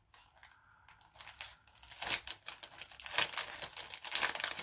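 A packet of paper die-cuts being opened by hand, its wrapping crinkling and rustling in quick irregular crackles that start about a second in and grow louder.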